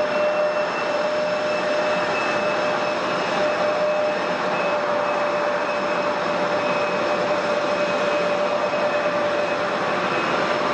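Aircraft engines running steadily: a constant whine over a broad rush of noise, with no rise or fall.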